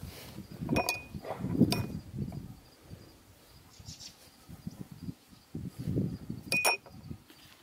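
Metal spoon clinking against a small glass bowl, with soft knocks and rustles of handling in between. The two clearest clinks ring briefly, about a second in and near the end.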